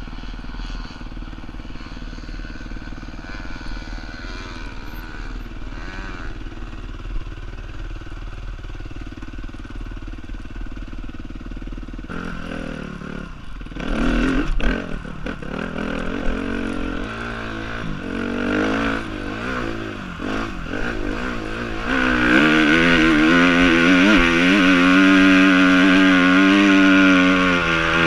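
Suzuki dirt bike engine running at low throttle, then working harder from about twelve seconds in, with a clatter of knocks around fourteen seconds. From about twenty-two seconds it is held at high revs under load as the bike climbs a steep slope.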